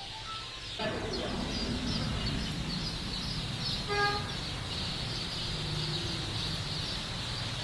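A dense chorus of day-old Egyptian super-laying chicks peeping, many high cheeps overlapping without pause, growing louder about a second in. A brief lower-pitched call stands out about four seconds in.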